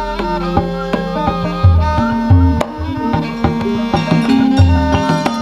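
Javanese gamelan playing: held metallophone and string tones over deep kendang hand-drum strokes, with sharp knocks among them.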